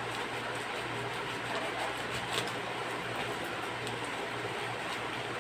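Faint crinkling and snipping of a plastic courier pouch being cut with small scissors and torn open, with one sharper crackle a little over two seconds in, over a steady low hum and hiss that is the loudest thing throughout.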